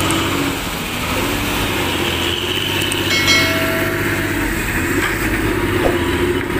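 A motor vehicle engine running steadily with a low hum, and a brief higher tone about three seconds in.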